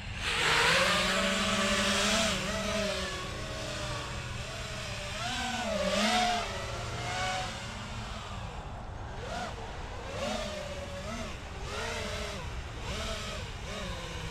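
FPV quadcopter's brushless motors and propellers whining in flight, the pitch rising and falling with throttle changes. A louder rush of prop noise comes in the first two seconds, with another swell about six seconds in.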